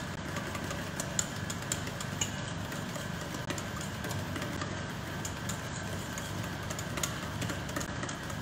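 Wire whisk beating a thin mango cake batter in a stainless steel bowl, its wires ticking against the metal in quick irregular clicks, over a steady low hum.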